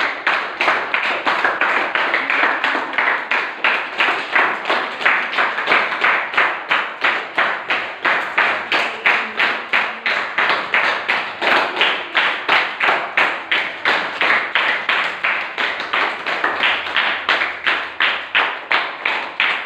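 Hand clapping kept up in a steady, even beat of about two to three claps a second, keeping time for a group warm-up.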